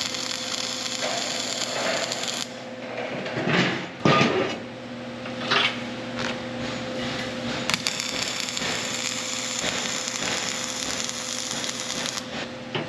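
Wire-feed (MIG/CO2) welding arc crackling and hissing as steel link pipes are welded to a link housing, in two runs of a few seconds each. Between the runs there are a few knocks as the workpiece is handled, and a faint steady hum runs underneath.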